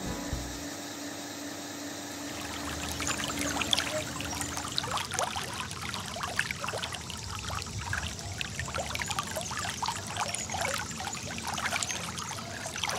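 Hot tub water churning and splashing under its jets, a dense irregular bubbling that builds up about two seconds in.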